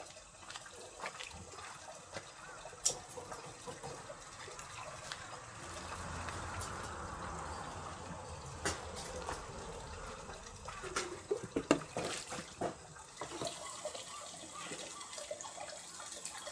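Water running for several seconds, fairly quiet, with scattered clicks and knocks around it, the loudest a cluster of sharp knocks about two-thirds of the way in.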